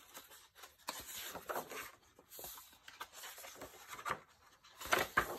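Paper pages of a planner notebook being turned by hand: soft, irregular rustles and swishes, the loudest one near the end.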